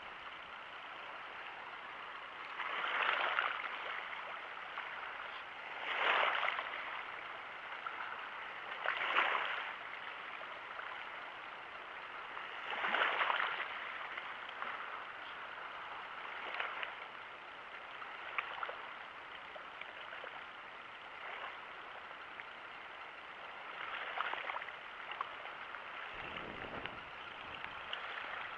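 Small waves lapping and washing at the water's edge, a steady wash with a louder swell every few seconds. A brief low rumble comes near the end.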